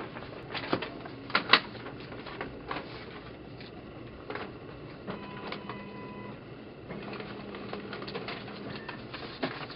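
Scattered clicks and knocks from handling paperwork and a pen at a desk, the loudest a quick pair about a second and a half in. A steady machine hum comes in about halfway and stops near the end.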